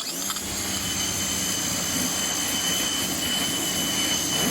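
Parkside PHD 135 D3 electric pressure washer switching on and running steadily: a motor-and-pump hum with a constant high-pitched whine over a hissing haze.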